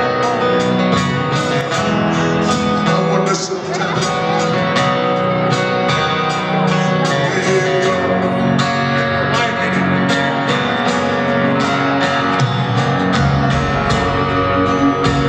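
Live rock band music: an acoustic guitar strummed over the band, with drums keeping a steady beat and the bass filling in more strongly near the end.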